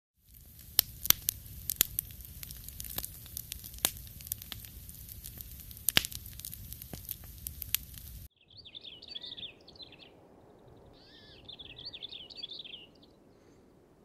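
Campfire crackling with frequent sharp pops, which cuts off about eight seconds in. Birds then call in two runs of quick repeated calls.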